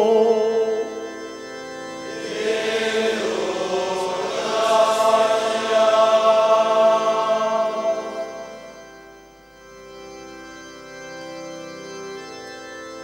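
Liturgical Latin chant: a held sung note fades in the first second, then a choir sings a sustained chant response for several seconds. About nine seconds in it gives way to soft, long-held organ notes.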